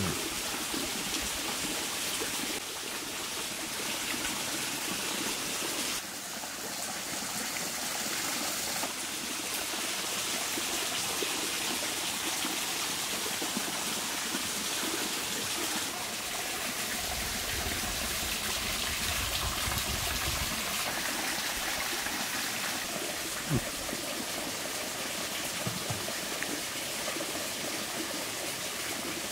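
A stream flowing: a steady rush of running water, with a low rumble for a few seconds past the middle.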